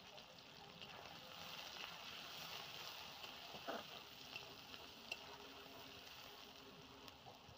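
Sliced onions sizzling and crackling in hot oil in an iron kadai, with a spatula stirring and scraping the pan from about halfway through.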